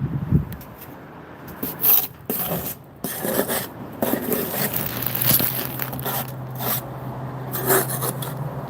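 Steel trowel scraping mortar off a mortar board in irregular strokes. A steady low hum joins about halfway through.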